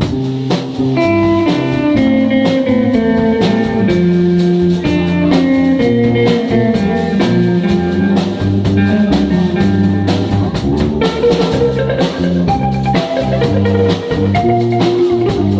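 Live instrumental music with no singing: a blues-style passage of held pitched notes over a steady beat.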